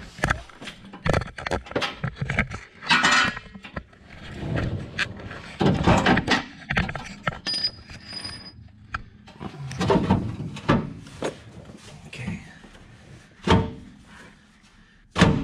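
Irregular knocks, clinks and scrapes of tools and metal parts being handled, mixed with bumps and rubbing from the camera being moved and set down.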